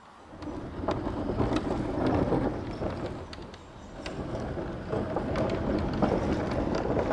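Large sheet-metal shed doors being pushed open, rumbling and rattling with scattered clicks and knocks as the panels move. Wind buffets the microphone underneath.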